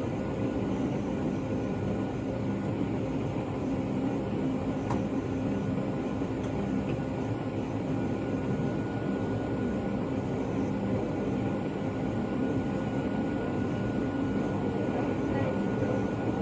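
Steady cabin drone inside a Boeing 757 in flight: engine and airflow noise with a few steady hums over it.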